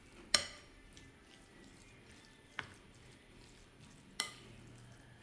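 Spatula stirring a crumbly semolina and almond mixture in a glass bowl, with three sharp clicks as it knocks against the glass: one about a third of a second in, the loudest, another midway and a third near the end.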